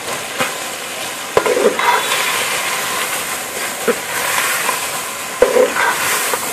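Chicken frying in a metal pot with ginger-garlic paste, a steady sizzle, while a metal ladle stirs it, knocking and scraping against the pot several times, loudest about a second and a half in and again about five and a half seconds in.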